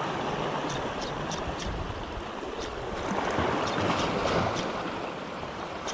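Sea waves washing against the rocky shore, a steady rushing that swells about three seconds in, with scattered faint high ticks over it.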